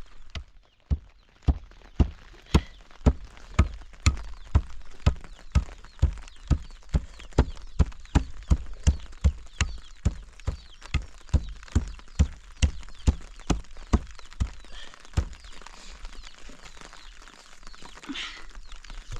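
Steady, repeated heavy blows of a hand tool, about two a second, going on for some fourteen seconds, then stopping.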